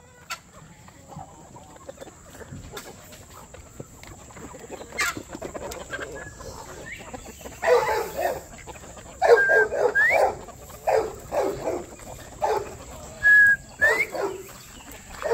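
Chickens clucking in short repeated bursts from about halfway through, after a quieter start with a few scattered clicks. Twice a northern bobwhite whistles its call over them, a short level note followed by a sharply rising one.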